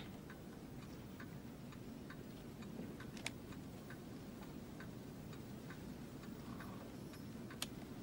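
Clock ticking faintly and evenly, about two ticks a second, with a sharper click about three seconds in and another near the end.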